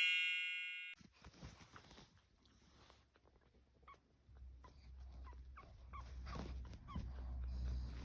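Two-week-old pug puppies whimpering: a string of short, faint, high squeaks that fall in pitch, most of them between about five and seven seconds in. A ringing chime dies away in the first second.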